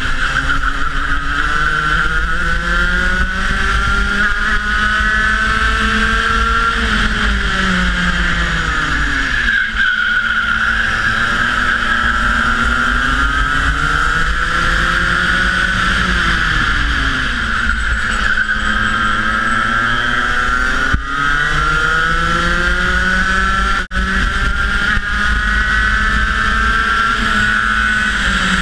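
Onboard sound of a Rotax Max 125cc two-stroke kart engine at racing speed, its revs climbing steadily along the straights and dropping sharply under braking into the corners. The revs fall about a quarter of the way in, again just past the middle, and once more at the end.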